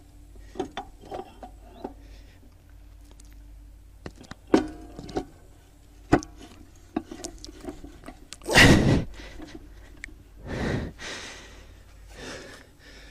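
Scattered knocks and metal clicks of a steering knuckle being fitted onto a rebuilt front axle, with two loud rushing, breath-like bursts about eight and a half and ten and a half seconds in.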